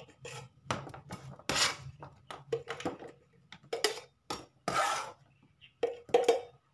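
Irregular clacks and knocks of a kitchen knife and hands scraping chopped tomato, chilli and onion off a plastic cutting board into a small plastic blender jar.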